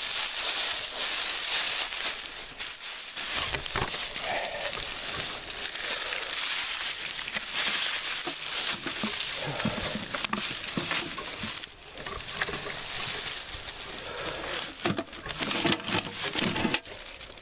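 Footsteps crunching and rustling through dry fallen leaves, a dense run of crackles with no steady rhythm.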